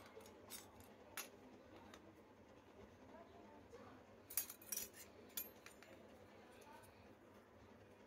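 Small metal toy kitchen utensils being handled and set down: a few light clinks and taps, with a quick cluster of them a little past the middle. Otherwise near silence.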